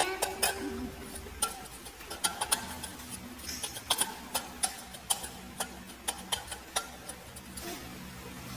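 An irregular series of short, sharp clicks, about two or three a second.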